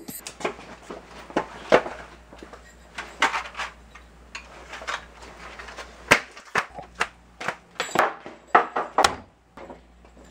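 A string of irregular knocks and bangs, a dozen or so sharp hits of uneven loudness, with small-room echo.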